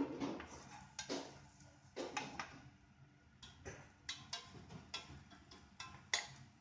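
Wooden spoon knocking and scraping against a stainless-steel saucepan while stirring a beer reduction, with irregular clicks and knocks about once a second, the sharpest one near the end.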